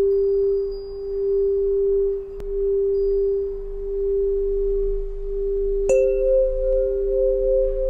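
Solfeggio tuning pipes ringing. A pure low tone, the 396 Hz pipe, sustains throughout and is tapped again with a click a couple of seconds in. About six seconds in, a higher pipe is struck with a sharp tap and rings steadily alongside it, the two tones wavering gently together.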